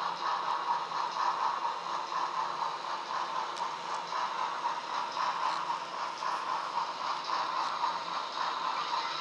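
Broadway Limited HO scale 4-6-2 Heavy Pacific model steam locomotive on a slow drive-by: its onboard DCC sound decoder plays steam running sounds through a small speaker, mixed with the rattle of the model running on the track and a few light clicks.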